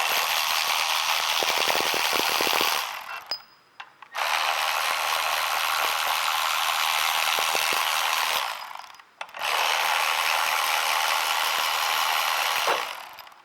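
Power ratchet spinning out the three bolts of a transmission's rear mount: three runs of fast ratcheting, each a few seconds long, with short pauses between.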